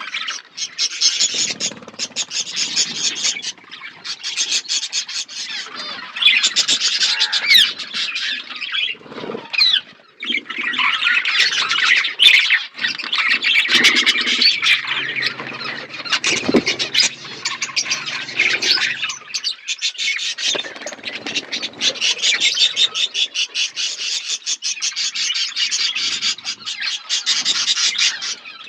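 A flock of budgerigars chattering and chirping, many birds at once in a dense, continuous twitter.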